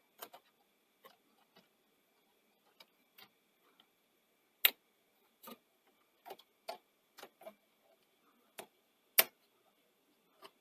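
Irregular sharp clicks and taps from handling the Sony SL-C6 Betamax deck mechanism while its new small thin rubber drive belt is fitted. Two clicks, about halfway through and near the end, stand out as the loudest.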